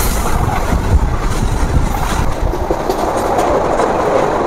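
ICF MEMU electric passenger train running at about 100 km/h, its wheels rumbling and rattling steadily over the rails. Heard from an open doorway as the train passes a steel truss bridge.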